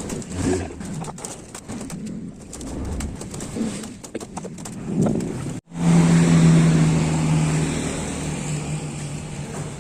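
Doves cooing among small clicks and knocks. Then, after an abrupt cut a little past halfway, a louder steady low engine hum takes over and eases off slightly toward the end.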